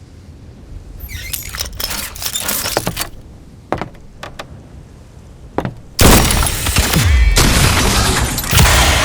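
Layered action sound effects for an anime fight: a quick flurry of sharp cracks and clatter building up, a few single sharp clicks, then a sudden loud blast about six seconds in with a deep rumble that carries on for about three seconds.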